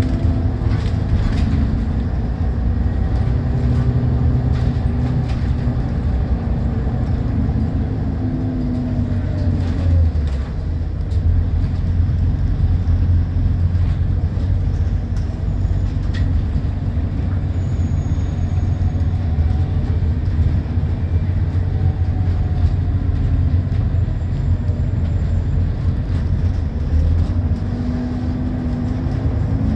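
Interior sound of a Scania L94UB diesel bus under way, heard from a rear seat: the engine note rises and falls over the first ten seconds, dips briefly, then settles into a steady low drone, with the pitch climbing again near the end.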